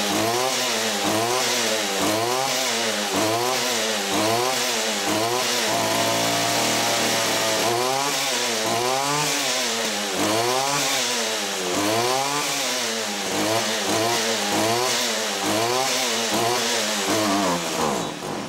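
Stihl FS 75 trimmer's small two-stroke engine running on stale gas, its speed surging up and down about once a second, with a brief steadier stretch midway: it is running badly on the stale fuel.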